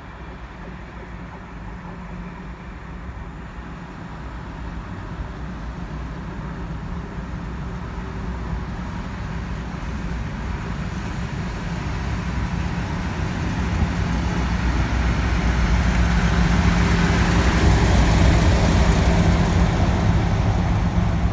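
Diesel locomotive approaching on the line and running past, its low engine drone and track rumble growing steadily louder and loudest near the end as it passes.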